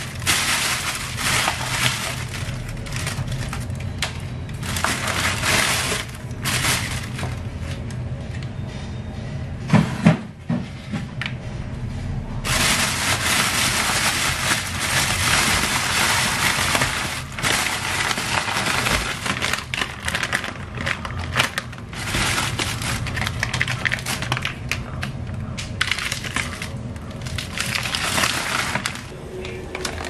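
Thin plastic grocery bag crinkling and rustling in long stretches as packs of frozen food are taken out of it, with one sharp knock about a third of the way through.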